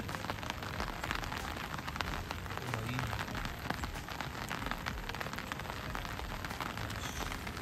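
Steady rain falling, with many separate drops striking close by throughout.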